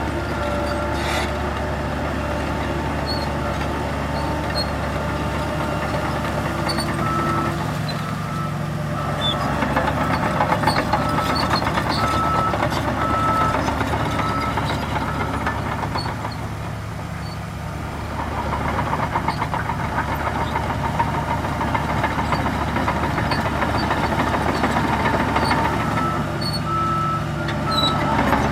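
Heavy diesel earthmoving machinery running steadily, with a reversing alarm beeping about once a second, once in the middle and again near the end.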